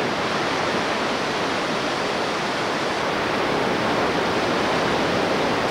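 Steady rush of surf breaking and washing up a flat sandy beach.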